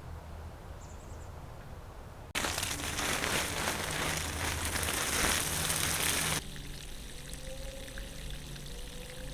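Water running in a loud steady rush for about four seconds, starting and stopping abruptly, then a quieter pour with a faint, slowly rising tone.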